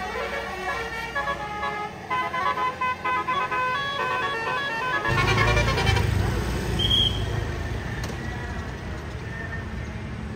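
A tour bus's multi-note 'basuri' musical air horn playing a short stepping tune for the first four seconds or so. About five seconds in, the bus engine's low rumble rises loud as the bus goes by, then fades into steady traffic noise.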